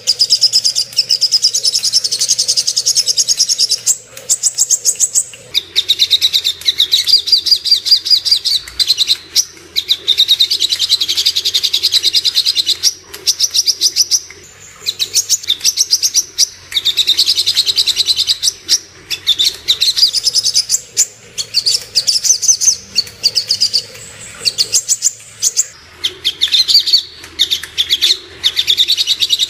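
Sogok ontong spiderhunter singing: long, fast trills of high, sharp notes, several seconds each with brief pauses between, played as a lure song to set caged birds calling.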